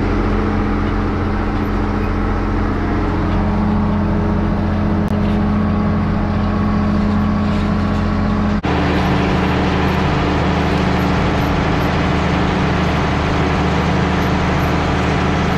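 Case IH 2290 tractor's diesel engine running steadily under load, pulling a chisel plow through hard, dry ground. There is a brief break in the sound a little past halfway.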